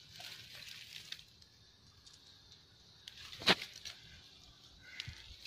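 Faint rustling in brush, with one sharp woody crack from a branch about three and a half seconds in.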